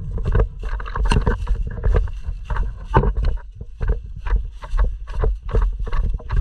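Footsteps of a person jogging over rough ground, about two to three steps a second, with gear rustling and low wind rumble on a body-worn action camera's microphone.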